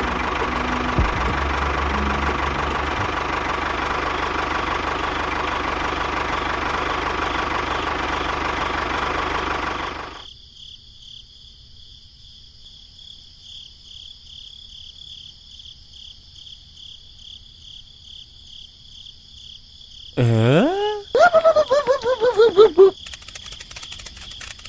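A model tractor's engine running steadily for about ten seconds, then cut off suddenly. After a quiet stretch with a thin high whine, there is a swooping whistle and a run of short falling tones near the end, followed by a few seconds of fast crackling.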